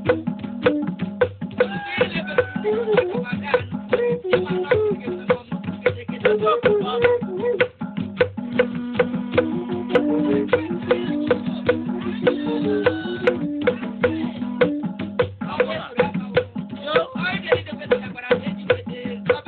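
Traditional Igbo ikorodo music: quick, steady drum and rattle strokes under a stepped melody line, with singing joining in at times.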